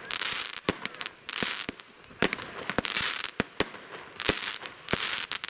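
Fireworks and firecrackers going off: many sharp bangs at irregular intervals, with short bursts of hiss about every one and a half seconds.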